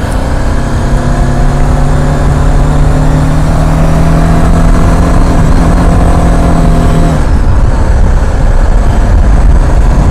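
BMW G310GS single-cylinder motorcycle engine pulling at a steady speed under heavy wind rumble on the microphone. Its even engine note drops out about seven seconds in, leaving mostly wind.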